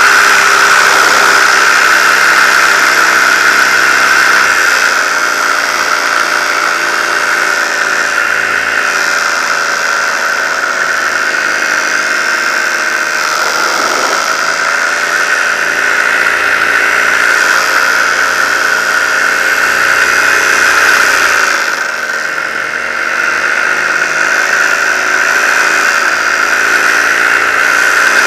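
Paramotor engine and propeller running steadily in flight, with a steady high whine over the engine note. The pitch drops and comes back up around the middle and again about three-quarters through as the throttle is eased and reopened.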